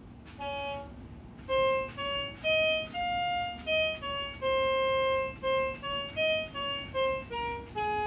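Musical step-on floor piano mat playing a simple melody in its electronic flute voice: about a dozen steady single notes, one per step, most held briefly and one held about a second in the middle.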